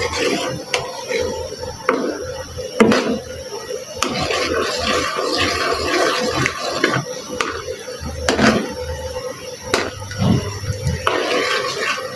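Metal spoon stirring a simmering sauce as it thickens with cornflour in a black pan, the spoon scraping and clinking sharply against the pan several times over the bubbling.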